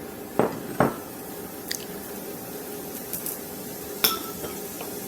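Tablespoons of MSG being spooned into a bowl of sauce: two soft thuds close together near the start, then a few light clicks of the spoon against the bowl.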